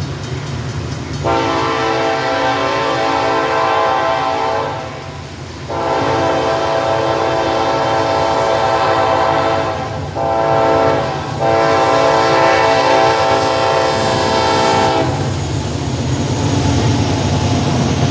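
Norfolk Southern diesel locomotive's air horn sounding the grade-crossing signal: long, long, short, long, over the low rumble of the train rolling by. The horn stops about three seconds before the end, leaving the train's rumble.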